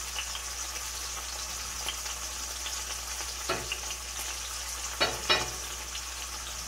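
Tilapia fillets frying in olive oil in a cast-iron skillet: a steady sizzle with fine crackling as pieces of onion are added to the pan. Three short, louder sounds stand out, one about halfway through and two close together near the end.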